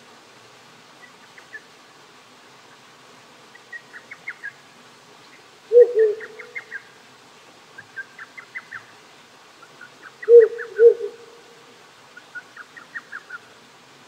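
A wild Ural owl hooting: two short pairs of low hoots, about six seconds in and again about ten and a half seconds in. Between them a quieter, quick series of high chirps comes back every couple of seconds, over the steady hiss of a small creek.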